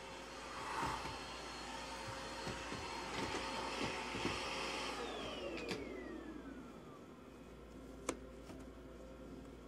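A small electric motor appliance running steadily, then switched off about halfway through, its pitch falling as it spins down, followed by a single sharp click.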